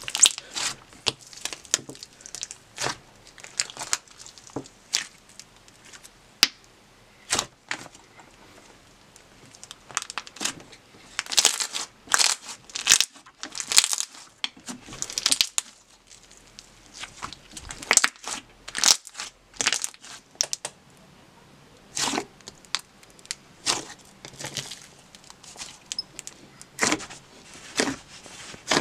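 Hands squishing, pressing and stretching slime: irregular sticky squelches with sharp clicking pops and crackles as air bubbles trapped in the slime burst.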